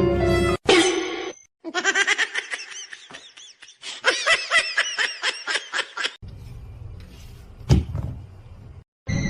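Short clips cut together: the longest holds a person laughing in quick repeated pulses, about four to five a second, for several seconds. It is followed by a different, noisier scene with a single sharp knock near the end.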